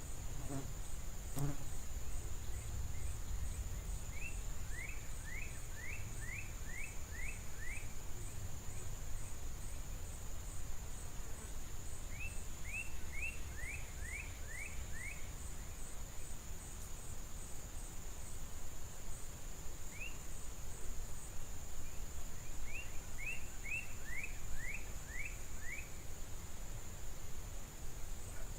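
Outdoor insect chorus: a steady high trill with a quick pulsing over it, broken every few seconds by runs of six to eight short falling chirps, over a low rumble.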